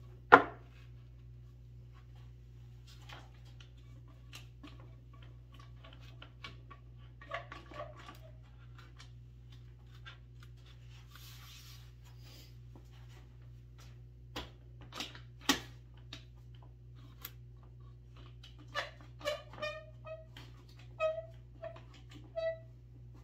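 Wooden boards being handled and set in place: scattered knocks and clatter of lumber, with a loud clack just after the start and sharp knocks about two-thirds through. Near the end comes a string of short, high whines.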